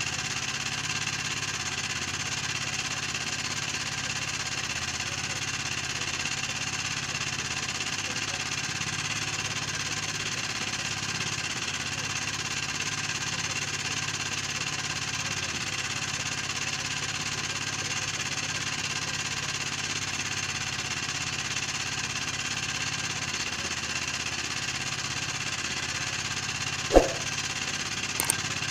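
A small engine running steadily at an even pace, with a single sharp knock near the end.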